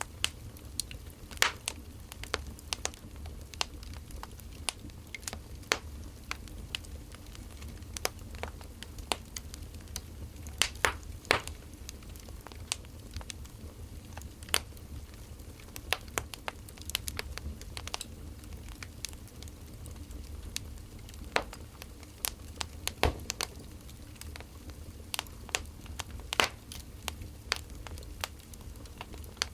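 Burning firewood crackling: irregular sharp pops and snaps, a few louder ones standing out, over a low steady rumble.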